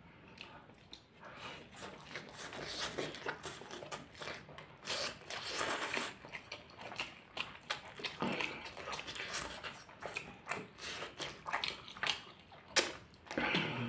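People slurping and chewing thick, spicy instant ramen noodles: wet sucking slurps and mouth sounds in irregular bursts.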